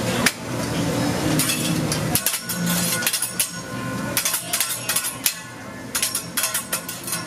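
Teppanyaki chef's steel spatula and knife clinking and tapping against each other and the steel griddle, in quick clusters of sharp metallic clicks.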